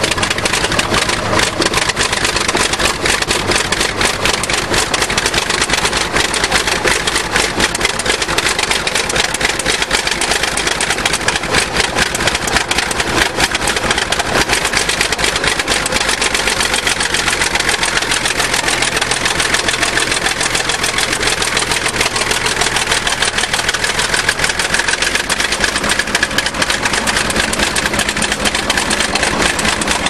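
Old crawler bulldozer's diesel engine running steadily with a rapid, even exhaust beat while it pushes snow.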